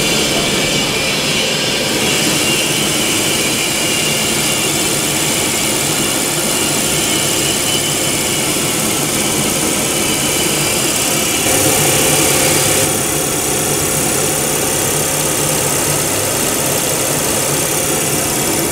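Artificial rice extruder production line machinery running: a loud, steady machine noise with a strong hiss. About eleven seconds in, the hiss gets brighter and a little louder for just over a second.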